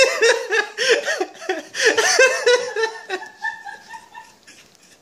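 A person laughing hard in quick high-pitched bursts, dying away about three seconds in; a faint, thin held tone follows.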